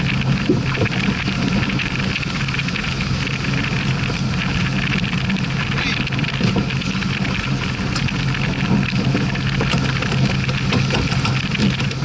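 Wind buffeting a sailing yacht under way, with water rushing along the hull and a steady low hum underneath.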